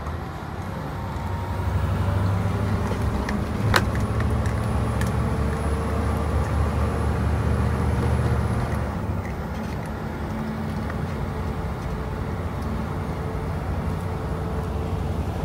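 Scania R730's V8 diesel engine running steadily with a low hum, and a single sharp click about four seconds in.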